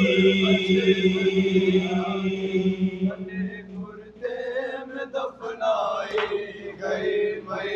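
Men's voices chanting a noha, an Urdu lament, holding one long note for about the first three seconds. The sound then drops away and is followed by quieter, broken singing.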